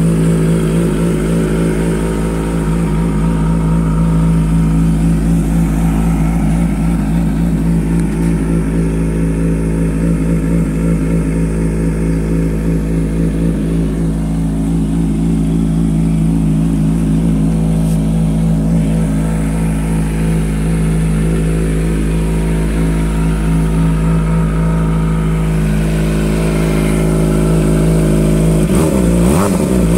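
Kawasaki ZX-25R's 250 cc inline-four running at a steady idle while warming up, heard through a DX Generation GPR aftermarket exhaust. The engine note shifts about a second before the end.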